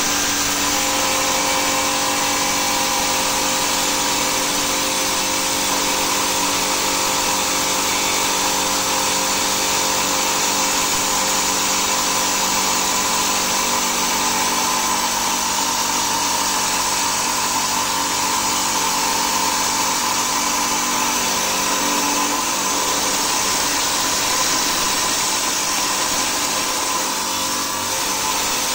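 Stone-cutting saw running steadily and cutting through agate, a constant whine over grinding noise.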